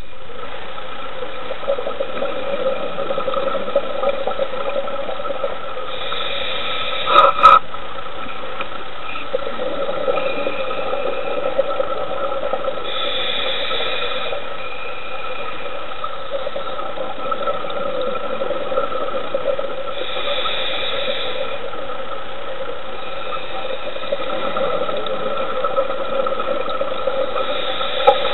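Underwater recording: a steady mechanical hum, with a hiss of scuba divers' exhaled bubbles about every seven seconds and a sharp double knock about seven seconds in.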